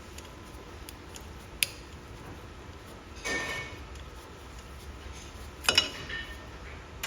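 Metal hand tools clinking against steel while a split pin is worked out of the front hub: a sharp click about a second and a half in, then two ringing metallic clinks around three and six seconds.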